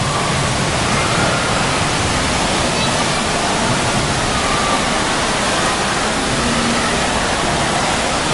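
Steady rush of water pouring and splashing from a water-park play structure's sprays and cascades onto shallow water.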